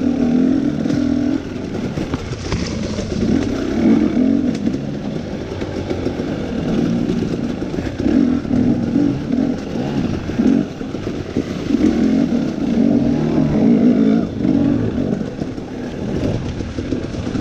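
KTM 250 dirt bike engine revving up and down repeatedly as it is ridden hard over rough trail, with knocks and rattles from the bike running over the rocky ground.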